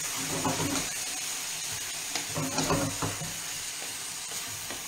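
Spelt gnocchetti sizzling as they cook in a skillet, with a few scrapes and knocks as they are stirred with a wooden spoon and tossed in the pan.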